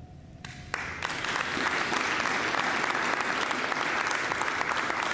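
Audience applauding: a few scattered first claps, then full, steady applause from about a second in.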